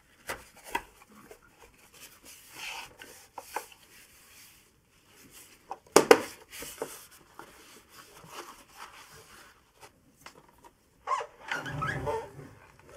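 Intermittent clicks, rustles and knocks of plastic coffee-machine parts being handled, with one sharp knock about six seconds in and a louder spell of handling near the end.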